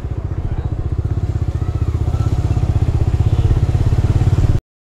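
Motorcycle engine running at low road speed with a rapid, even putter, getting louder toward the end; the sound cuts off suddenly just before the end.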